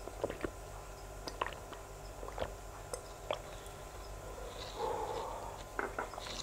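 Close-miked mouth sounds of eating and drinking: scattered soft wet clicks and lip smacks, with a short breathy sound about five seconds in.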